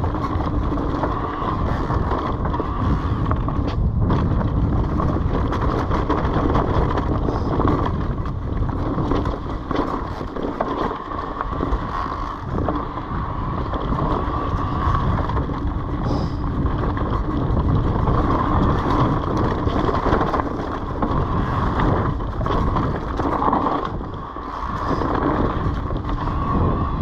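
Orbea Wild FS H25 electric mountain bike ridden along a dirt singletrack: steady wind rumble on the microphone and tyre noise, with frequent small clicks and rattles from the bike over rough ground.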